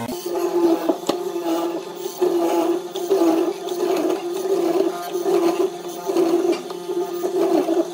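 Hollow-chisel mortiser boring a square mortise into a wooden beam: the motor and chisel auger grind through the wood in repeated plunges, the noise swelling and easing about once a second.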